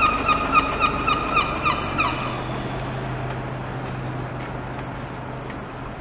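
A gull calling: a quick series of repeated notes, about four a second, that stops about two seconds in. A steady low hum, like an idling vehicle engine, carries on after it.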